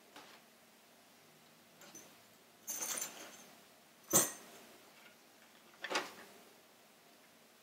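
Quiet handling of objects in an old suitcase: a soft rustle of paper or sleeves at about 3 s, a sharp little clink a second later, and a lighter knock near 6 s as the items are moved.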